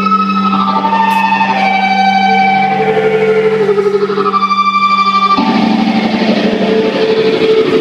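Live rock band music: held electric-guitar notes stepping in pitch over a steady low drone. About five seconds in, the sound thickens into loud strummed guitar with the full band.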